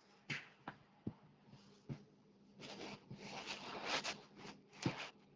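Faint rustling and a few clicks over a phone call, the handling noise of a phone held at the ear. A longer soft rustling hiss comes from about two and a half to four seconds in.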